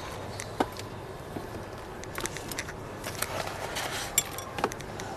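Damp, clumpy garden soil being crumbled and sprinkled by hand into a grow bag to cover sown seeds: faint scattered crackles and rustles, with a few sharper small clicks.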